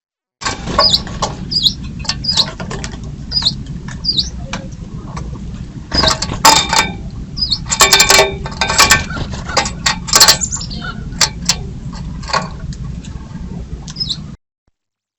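Wild birds at a feeder: several short high chirps, then a flurry of sharp clicks, knocks and wing flutters from birds landing and pecking, over a steady low hum. The sound begins after a moment of silence and cuts off shortly before the end.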